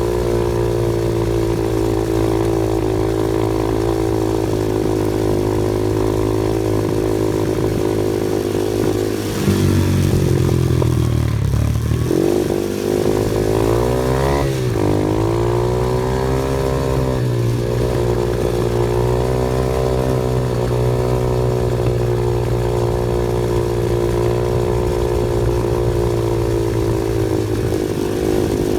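Off-road vehicle's engine running at a steady pitch, with the revs dropping and climbing back twice in the middle before settling again.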